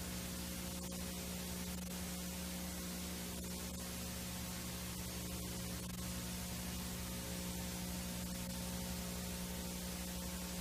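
Steady analog VHS-style tape hiss with a low electrical hum underneath and faint crackles here and there.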